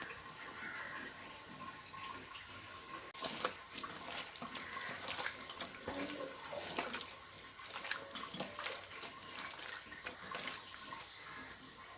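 Running water with many sharp clicks and knocks; the sound changes abruptly about three seconds in and grows busier and louder.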